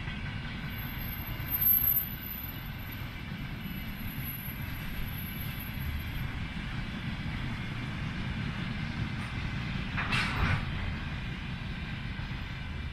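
Container freight train wagons rolling past: a steady rumble of wheels on rail, with a thin high squeal through the first few seconds and a short noisy burst about ten seconds in.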